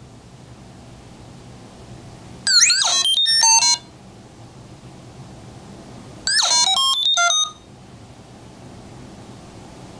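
An Arduino Uno playing R2-D2-style beeps and whistles as square-wave tones through a small 8-ohm toy speaker: two short bursts of rapid chirps, sweeping whistles and stepped beeps, the first about two and a half seconds in and the second about four seconds later.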